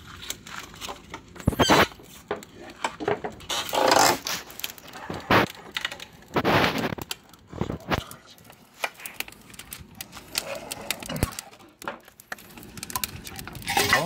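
Wire grill rack being pushed across the brick floor of a wood-fired oven with a metal pole: repeated metal-on-brick scrapes and clatters, with many short knocks between them.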